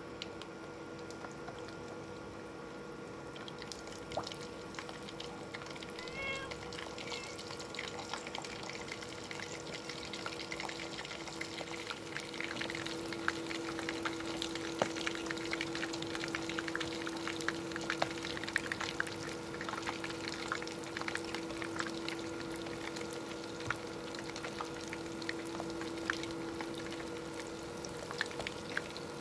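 Cone samosas deep-frying in hot oil: a steady sizzle with dense fine crackling that grows fuller and louder about twelve seconds in, over a steady low hum.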